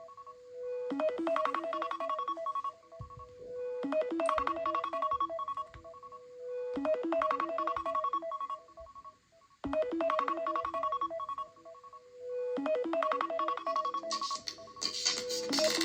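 Smartphone ringtone playing: a short electronic melody that ends on a held note, repeating about every three seconds. About fifteen seconds in, a brighter, busier ringtone starts over it.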